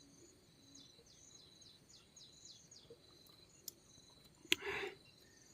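Faint outdoor ambience: small birds chirping in quick runs of short, high, falling chirps over a steady high insect drone. A sharp click and a brief rustle come about four and a half seconds in.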